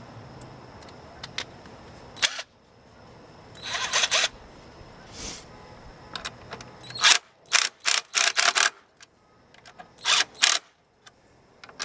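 Sharp clicks and short clattering strokes of hand tools on metal parts, coming in several quick clusters with the busiest run about seven to eight and a half seconds in. These are typical of bolting on the scooter's rear splash guard. A faint low hum runs under the first seven seconds and then stops.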